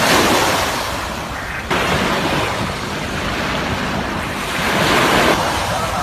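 Small waves breaking and washing up onto a sandy beach, the surf swelling loudest near the start and again about five seconds in.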